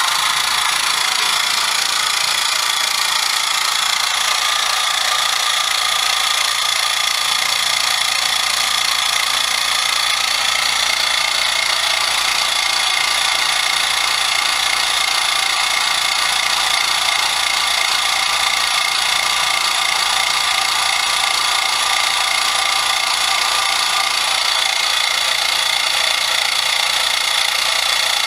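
Miniature 12-volt piston air compressor, converted into a vacuum pump, switching on abruptly and running steadily at an even pitch while it pulls a vacuum on a glass carboy.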